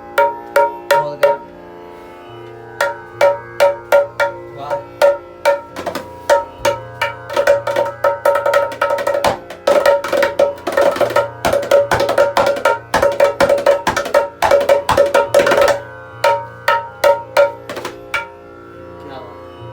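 Repaired dholak being played to check its tone, with the head tuned to A sharp. The strokes ring out with a clear pitch in a rhythmic pattern. After a brief pause near the start they grow faster and denser through the middle, then thin out toward the end.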